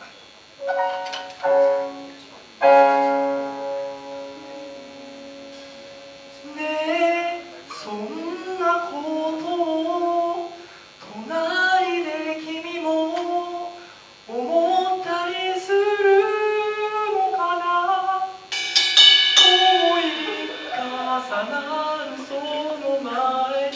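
A live band plays the opening of a song: a couple of short chords, then a held chord that rings and dies away. About seven seconds in a voice starts singing over light accompaniment, and about eighteen seconds in the band gets louder with a cymbal crash.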